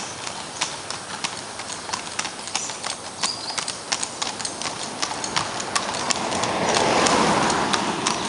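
Hooves of several horses clip-clopping on a paved road in a quick, uneven patter of sharp clicks. A rushing noise swells over the last couple of seconds.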